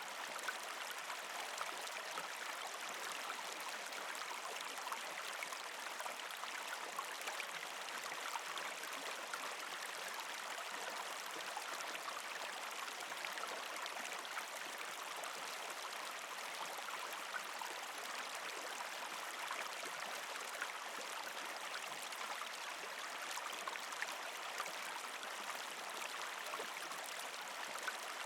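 Creek water running steadily over rocks beneath partial ice cover, a continuous gurgling trickle flecked with small splashes.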